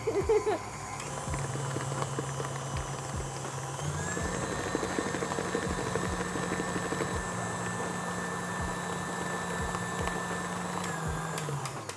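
KitchenAid tilt-head stand mixer running, its flat beater beating eggs into creamed butter and sugar, with a regular knock as the beater turns through the dough. The motor steps up to a higher speed about four seconds in, then winds down and stops near the end.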